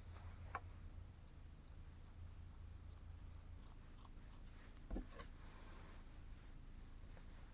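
A series of light, crisp clicks or snips, irregular at about three a second, with one dull knock about five seconds in.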